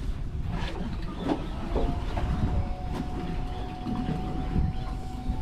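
Wind rumble and water slopping against a small boat's hull at sea, with a few knocks and clicks from a rod and spinning reel as a fish is wound in. A faint steady whine comes in about two seconds in.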